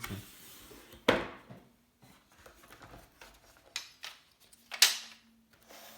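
A cardboard product box and its packaging being handled and opened: two sharp knocks, about a second in and near the end (the later one louder), with smaller clicks and faint rustling between them.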